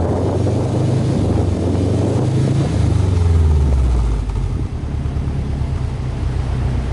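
Exhaust note at the tailpipe of a Subaru Impreza WRX (GDA) with its turbocharged flat-four boxer engine running. Engine speed varies and is loudest around three seconds in, then it settles to a quieter, steady idle from about four and a half seconds.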